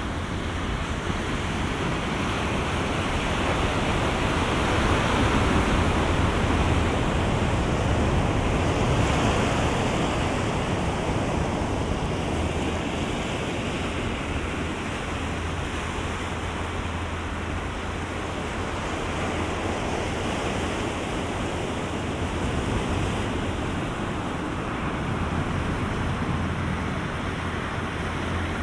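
Ocean surf breaking on the beach: a continuous wash of waves that swells and eases in slow surges, loudest a few seconds in, with a low rumble of wind on the microphone.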